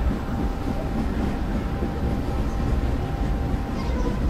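Model trains running on the garden-scale layout: a steady low rumble with a faint thin whine.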